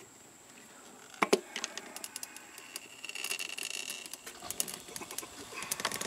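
Hand tire-changing tools working a scooter tire's bead over the rim: two sharp metal knocks just over a second in, then scattered clicks and scrapes, a brief high squeak, and a quicker run of clicks near the end.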